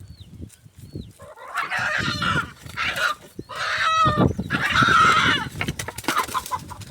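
A hen squawking loudly in a run of harsh cries, after a couple of faint, thin chick peeps at the start.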